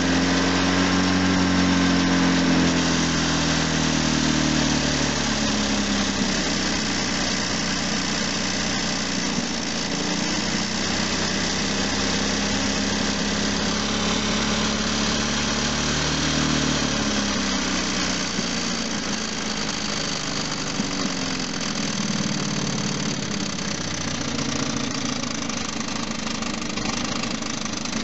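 ZMZ-409 2.7-litre four-cylinder injected petrol engine of a UAZ running, its speed rising and falling a few times. It is being run to show an engine knock, which the owner links to the timing drive.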